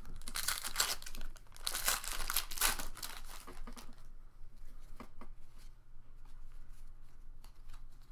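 Pokémon booster pack wrapper being torn open and crinkled, loud for the first three seconds or so, then quieter clicks and rustles of cards being handled.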